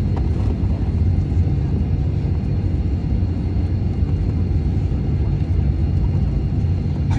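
Cabin noise of a Boeing 737-900 taxiing after landing: a steady low rumble and hum from the idling engines and the rolling airframe.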